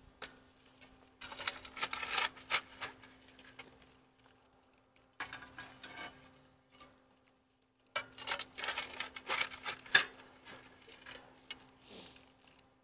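Flat metal shovel scraping up hot coals and ash from a steel fire ring and tipping them onto a cast-iron Dutch oven lid, with rattling, clattering coals. It comes in two bouts, starting about a second in and again about eight seconds in.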